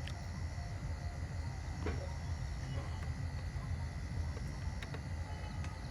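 A few faint clicks of small parts being fitted by hand, over a steady low background hum.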